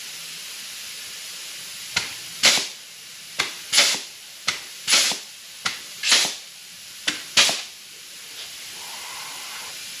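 Air-powered joggle (offset flanging) tool crimping the edge of a sheet-metal patch, five strokes about a second apart. Each stroke is a sharp snap followed by a short hiss of exhausting air.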